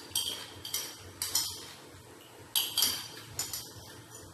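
A metal spoon scraping and clinking against a glass plate while eating: several short, sharp strokes, about two a second.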